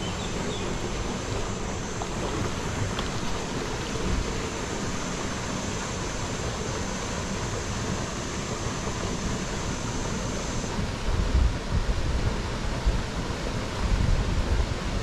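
Steady rushing of shallow river water, with a thin high hiss that stops about two-thirds of the way through. Near the end, gusts of wind buffet the microphone.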